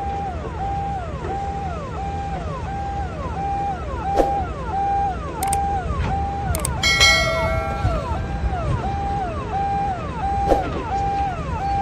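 Vehicle siren wailing in a repeating cycle, a tone that climbs, holds and falls back a little faster than once a second, over the low rumble of heavy engines. About seven seconds in, a short bell-like chime rings out, with sharp clicks around it.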